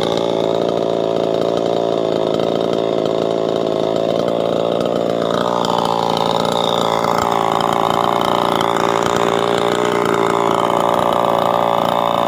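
Small two-stroke petrol chainsaw running steadily to warm up its engine. The pitch wavers slightly and drops a little about five seconds in, then holds steady at idle.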